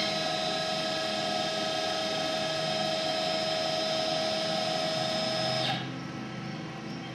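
Stepper motors of a 6090 CNC router driving the spindle carriage along its X axis at a steady speed: a steady whine of several tones that cuts off suddenly about six seconds in, as the carriage stops at its newly set home position on the machine's first automated move.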